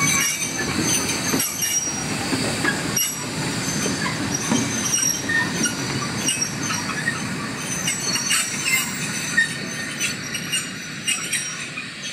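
A pair of small Bagnall 0-4-0 saddle tank steam locomotives working a train of steel open wagons: wheels squealing on the rails with clanks and rattles from the wagons over a steady running rumble, growing fainter near the end.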